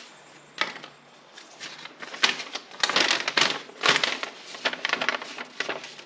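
Paper and a plastic bag crinkling and rustling as folded instruction sheets are handled and opened out, a single crackle about half a second in, then a dense run of quick crackles from about two seconds in.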